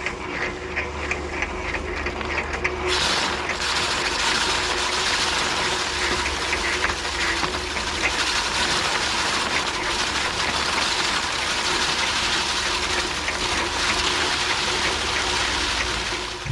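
Foot-pedal paddy thresher's drum spinning with a steady, rattling whir over a low hum; a brighter hiss joins about three seconds in.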